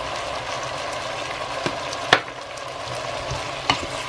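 Diced zucchini, onion and potato sizzling steadily in oil in a pot as they soften over medium-high heat, stirred with a wooden spoon that knocks against the pot a few times, the loudest knock about two seconds in.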